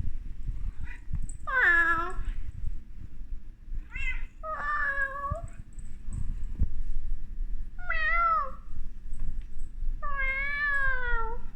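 Domestic cat meowing repeatedly, about five separate meows a couple of seconds apart, the last one the longest and drawn out.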